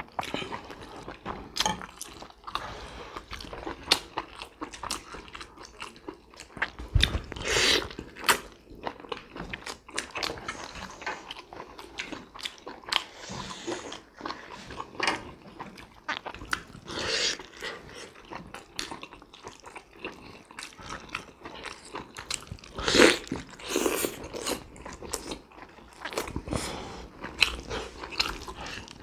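Two people eating steamed pork momos close to the microphone: irregular wet chewing, smacking and biting clicks, with a few louder mouth noises now and then.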